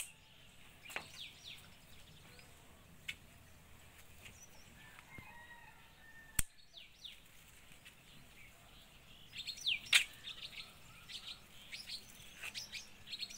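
Small birds chirping in short, falling calls, in clusters near the start and again over the last few seconds. A few sharp clicks come between them, the loudest about halfway through: garden scissors snipping chrysanthemum stems.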